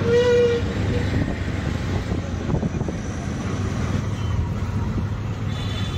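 Auto-rickshaw engine running with road noise, heard from inside the open passenger cabin while riding through traffic. A vehicle horn sounds briefly right at the start.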